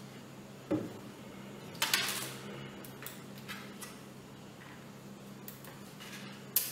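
A few separate clicks and knocks from handling a compact camera and a laptop on a desk, over a steady low hum.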